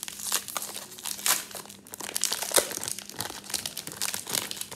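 Two sealed trading-card pack wrappers being torn open and crinkled by hand: irregular crackling and rustling throughout.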